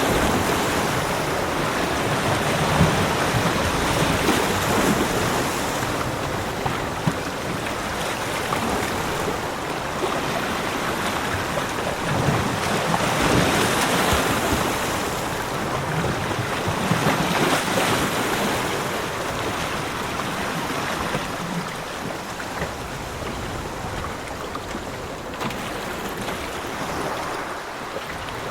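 Ocean waves washing onto a beach: a steady hiss of surf that swells every few seconds as each wave breaks, easing off a little near the end.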